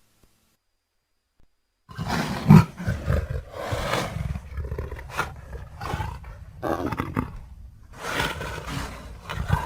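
About two seconds of silence, then a string of big cat roars and snarls, about six rough bursts one after another. They are sound-effect recordings of the kind used to voice a leopard character, mixed from leopard, cougar and lion roars.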